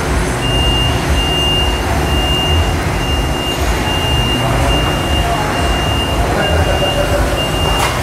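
Bottling-line machinery running loudly and steadily, with a high-pitched beep repeating about every three-quarters of a second.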